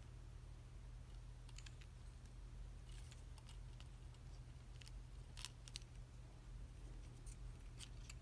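Faint, scattered clicks of a plastic Transformers action figure's joints and parts being moved by hand, the strongest a little past the middle, over a steady low hum.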